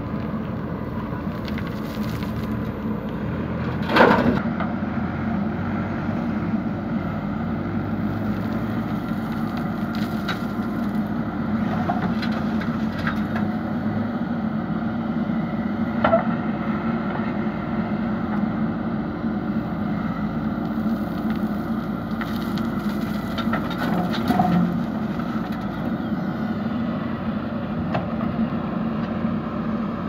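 JCB backhoe loader's diesel engine running steadily under load as it digs and loads gravel. Several sharp clanks of the steel bucket and stones sound over it, the loudest about four seconds in and others around the middle and later.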